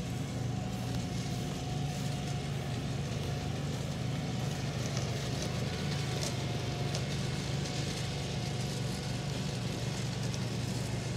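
A small engine running steadily at an even speed, a constant low hum.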